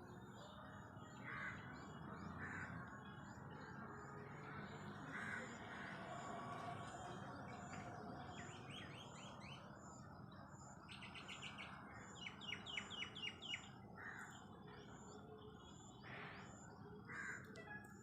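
Faint birdsong: short high chirps repeating about twice a second, with a quick run of chirps about twelve seconds in and a few lower calls scattered through, over a low steady background hum.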